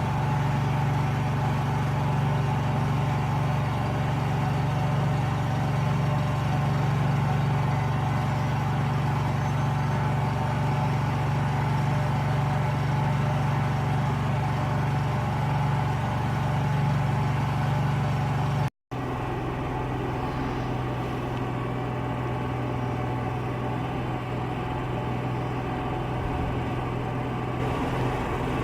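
A car running steadily with a constant low hum. It breaks off for an instant about two-thirds of the way through, then carries on slightly quieter.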